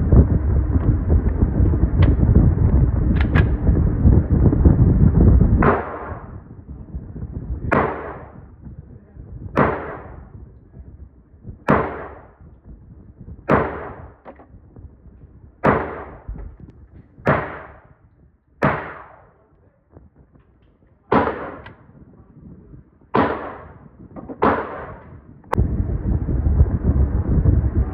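A series of about a dozen gunshots fired one at a time, roughly every one and a half to two seconds, each with a short echo. Wind rumbles on the microphone before the shots begin and again after they stop.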